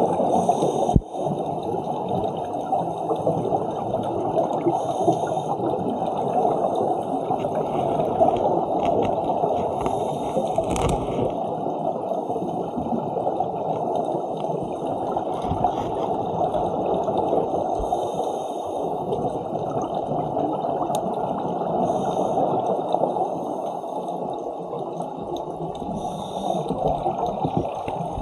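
Underwater sound heard through a camera's housing: a steady muffled rush of water, with scuba divers' exhaled regulator bubbles gurgling every few seconds.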